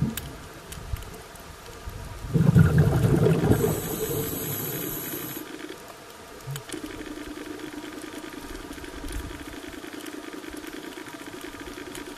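Underwater recording on a coral reef: a rush of crackling, bubbling water noise about two seconds in, fading after a few seconds. Then the steady low hum of a boat engine carried through the water sets in and holds.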